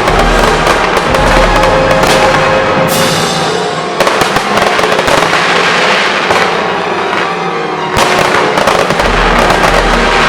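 Aerial fireworks bursting and crackling in dense, continuous volleys, with fresh loud bursts about four seconds in and about eight seconds in. Music plays underneath.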